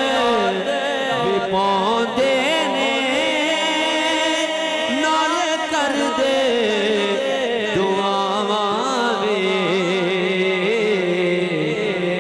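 A man sings a Punjabi devotional kalam into a microphone in long, wavering melismatic lines. The voice is amplified through a PA.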